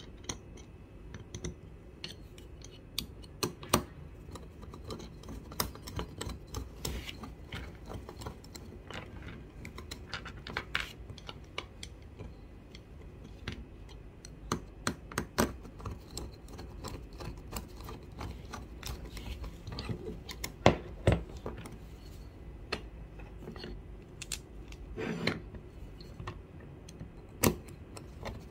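Irregular light clicks and taps of small screws, orange plastic jaw pads and a screwdriver being handled against an aluminium-alloy mini table vise as it is put together, with a few louder knocks.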